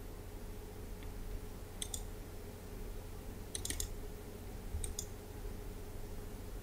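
Computer mouse clicks: a few short clicks, some in quick pairs or small clusters, about once a second or two, over a steady low electrical hum.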